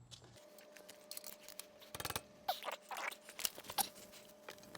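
Hand tools working on a brake caliper bracket bolt: scattered light metallic clicks and a few short squeaks.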